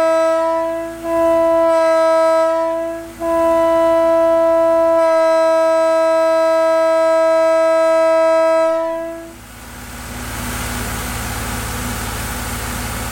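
Leslie S31 locomotive air horn blown in three blasts on one steady note: a short blast ending about a second in, a second of about two seconds, then a long blast of about six seconds. After it a steady mechanical rumble carries on.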